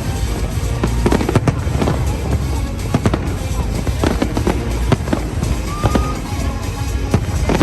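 Fireworks display: repeated bangs and booms at uneven intervals over background music.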